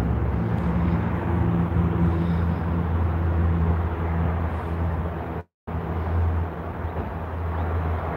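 Steady outdoor vehicle and traffic noise: a low engine-like hum under a rushing haze. The sound cuts out completely for a moment about five and a half seconds in.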